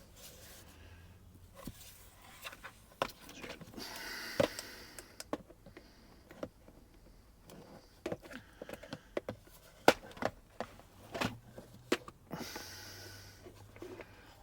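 Scattered clicks and light knocks as an aftermarket B&M shifter is pushed and pulled on its welded floor pedestal to test how solid it is, with two brief rustling stretches.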